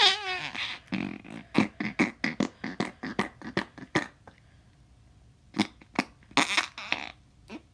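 Putty squeezed and pressed to make fart noises: a squeal falling in pitch at the start, then a rapid run of short pops, a pause of about a second, and a few more pops with one longer sputter near the end.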